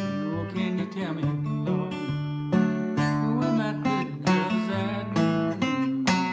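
Steel-string acoustic guitar picked and strummed as a blues accompaniment, with a man's voice singing over it.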